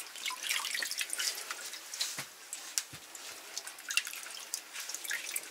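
Slabs of pork fat being moved and packed by gloved hands in a large aluminium pot of brine: irregular splashing, sloshing and dripping, with a few dull knocks.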